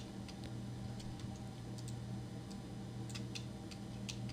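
Faint, irregular clicks of a computer keyboard and mouse, a dozen or so with uneven gaps, over a steady low hum.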